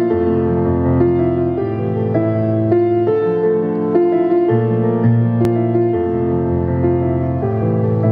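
Kawai ES6 digital stage piano playing a slow instrumental intro: held chords and melody notes that change every half second or so over sustained low bass notes.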